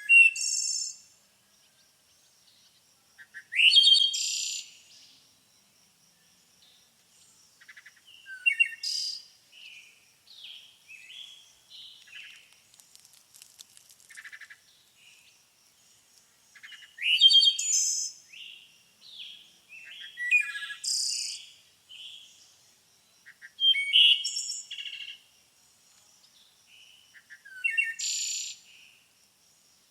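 Songbirds singing: loud, clear song phrases come every few seconds, with softer chirps and twitters between them. A faint steady high tone runs underneath.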